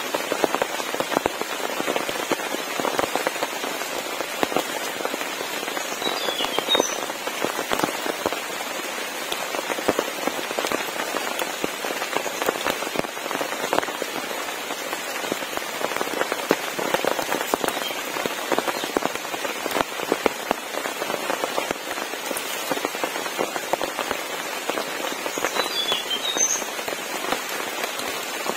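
Heavy rain falling steadily, a dense hiss with many sharp close drop hits on nearby surfaces.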